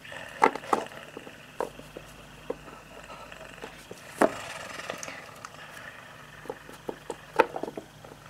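Irregular light knocks and taps, about a dozen of them, the loudest a few near the start, one about four seconds in and one near the end, over a faint steady hiss.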